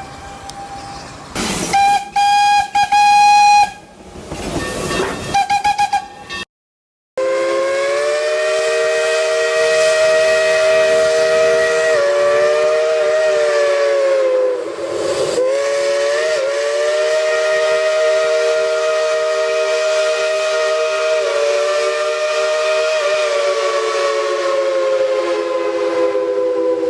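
Steam train whistles: hissing steam and a few short single-note whistle toots, then, after a brief cut to silence about six and a half seconds in, a long multi-note chime whistle held for about twenty seconds over a steady hiss, wavering in pitch with a dip about halfway through.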